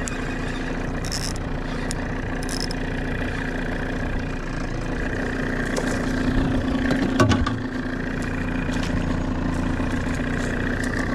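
Boat's outboard motor idling steadily, with a few sharp knocks about seven seconds in.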